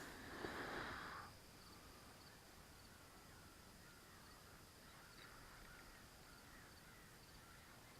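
Near silence of outdoor pond ambience with faint high chirping throughout, after a brief harsh noise in the first second.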